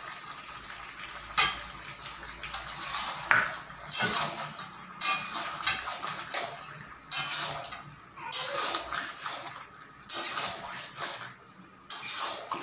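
A flat metal spatula scraping and knocking against the side of a metal cooking pot as it stirs chicken and fried potatoes, in repeated strokes about once a second.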